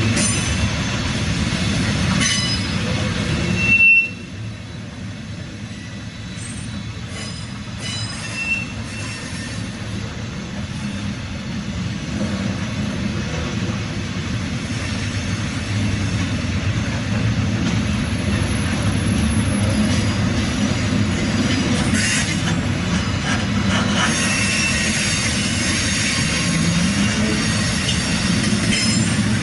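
Norfolk Southern gondola cars rolling past, a steady rumble of wheels on rail with clickety-clack over the joints and a couple of brief high wheel squeals. The sound drops off abruptly about four seconds in, then slowly builds back up.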